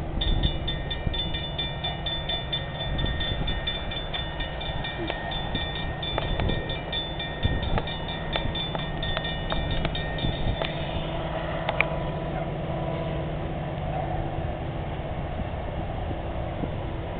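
Railroad grade-crossing bell ringing steadily over the low rumble of approaching diesel freight locomotives; the bell's ringing drops out about two-thirds of the way through while the rumble goes on.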